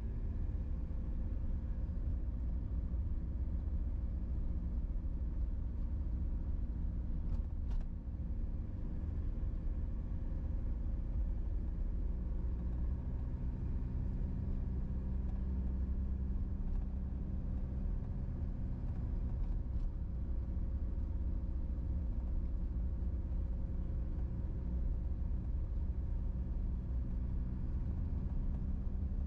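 Steady engine drone and low road rumble from a vehicle cruising at an even speed on an asphalt road.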